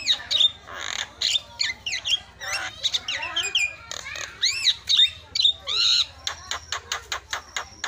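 Javan myna (jalak kebo) singing: a fast, busy jumble of whistles, chirps and harsh squawky chatter, with rising-and-falling whistled notes, and a quick run of clicking notes near the end.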